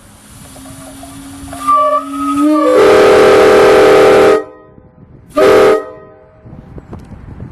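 Multi-tone air horn sounding a chord of several steady notes. It slides up into pitch as it starts, holds one loud blast of about two seconds, then gives a short blast about a second later.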